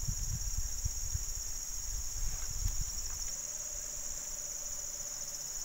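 Steady, high-pitched chorus of insects shrilling without a break. Low rumbling buffets on the microphone come and go through the first three seconds.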